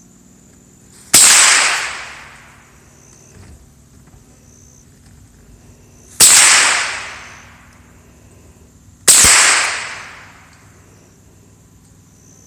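Three rifle shots from a .22 LR, about five seconds and then three seconds apart, each followed by a second-long echo rolling off.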